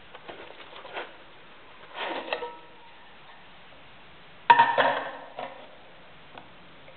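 A multicam nylon magazine pouch handled over a ceramic bathroom sink, giving scattered small ticks and rustles. There is a short clatter about 2 s in and one sharp knock with a brief ring about 4.5 s in.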